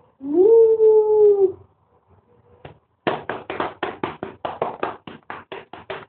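A dog howls once: a long, loud note that swoops up, holds and drops away at the end. About three seconds in, a fast run of short, breathy pulses starts at about five a second and keeps going.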